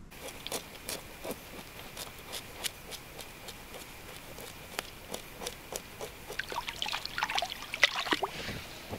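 Lake water splashing and trickling as a grayling is rinsed by hand in the shallows during cleaning, with small scattered splashes and a busier run of louder splashing between about six and eight and a half seconds in.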